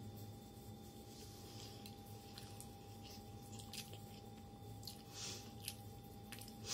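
Faint chewing and wet mouth sounds of a person eating, with a few small clicks, over a steady low hum.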